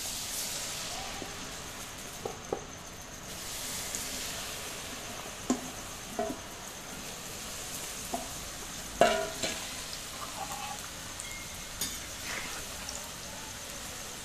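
Raw potato sticks coated in rice flour sizzling as they fry in hot oil in a metal kadai, with the hiss rising sharply as they go in at the start. A few short metal clinks against the pan, the loudest about nine seconds in.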